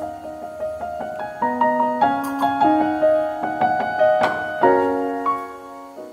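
Background piano music: a gentle melody of held notes, fading out at the end.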